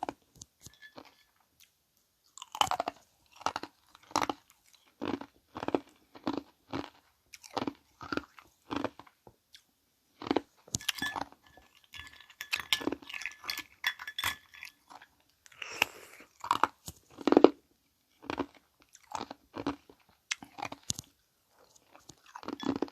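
Ice being bitten and chewed close to the microphone: a long run of sharp crunches, one to two a second, with a couple of short pauses.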